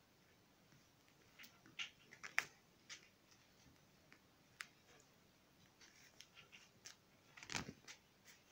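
Near-silent room tone broken by scattered faint clicks and ticks, with a short, fuller thump near the end.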